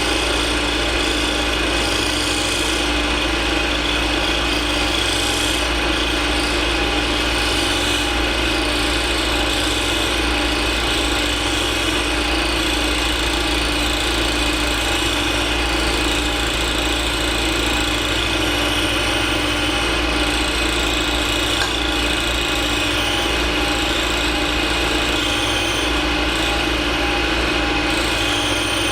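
Machine tool running steadily under power, taking a gentle cut through brass lubricated with cutting fluid; a constant motor hum with the hiss of the cut over it.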